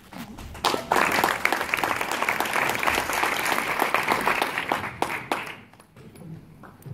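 Audience applauding, starting about a second in and dying away after about five seconds.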